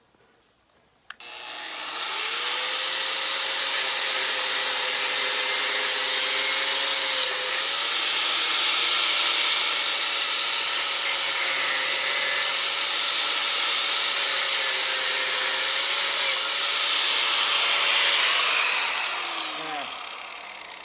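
Electric grinder switched on about a second in, spinning up and running steadily with a loud hiss of abrasive working on steel, then switched off and winding down near the end. It is grinding a clean bare-metal spot for welding.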